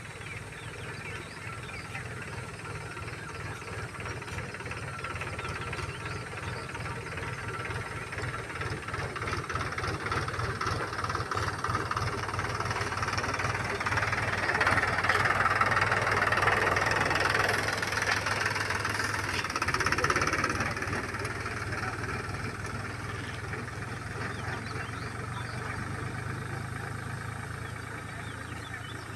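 A motor vehicle's engine runs past: a steady low hum throughout, with the noise swelling to its loudest about halfway through, then fading away as the vehicle recedes.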